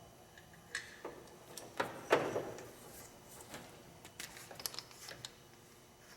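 Scattered light clicks and taps of small parts being handled, the loudest about two seconds in.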